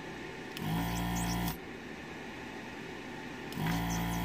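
Electric desoldering gun's vacuum pump running in two short bursts of about a second each, a steady hum, as solder is sucked off the pins of the speedometer stepper motor on the instrument cluster board.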